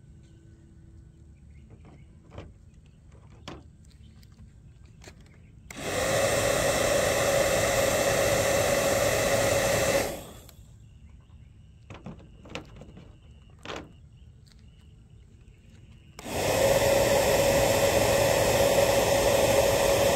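Electric bubble gun's small motor and fan running in two bursts of about four seconds each, a steady whir with one steady hum, starting and stopping abruptly, about six seconds apart. Faint clicks and rustles in the quiet gaps between.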